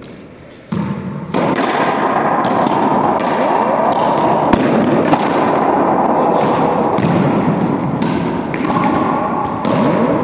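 Racquetball rally in an enclosed court: the hard rubber ball cracks off racquets and the court walls and floor in quick knocks, several a second, over a loud, echoing wash of noise.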